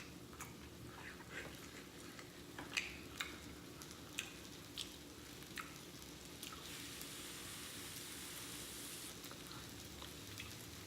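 Close-miked eating: scattered wet mouth clicks and lip smacks while chewing. About six and a half seconds in, a steady hiss sets in for a couple of seconds.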